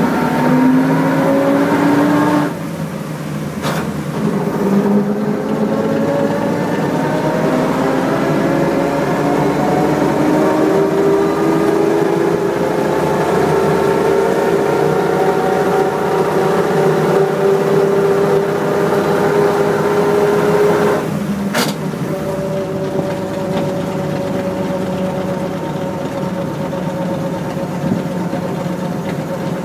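1928 Graham Brothers truck's engine running under way, its note climbing slowly as the truck gains speed. The pitch drops sharply twice, about two and a half seconds in and again a little past twenty seconds, and each drop comes with a brief click. A steady hiss of road and wind noise runs underneath.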